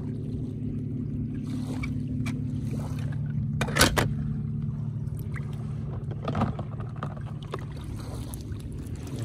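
A toy combine harvester splashing into a tub of water, loudest about four seconds in, with a smaller splash and handling clicks later, over a steady low hum.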